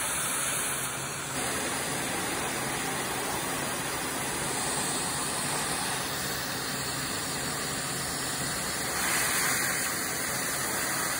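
Steady rushing hiss of air from a hose held beside a fractional CO2 laser handpiece during laser resurfacing, swelling a little near the end.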